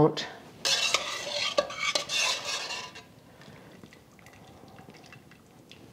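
Wire mesh skimmer scraping and clinking against a stainless steel pressure cooker pot and mixing bowl as cooked chicken bones and vegetables are scooped out of the broth. The sound fades to faint clicks after about three seconds.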